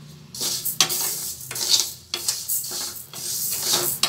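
Horse gram seeds being stirred and tossed with a wooden spatula in a dry metal kadai, rattling and scraping against the pan in repeated quick strokes. The seeds are being dry-roasted until they turn reddish.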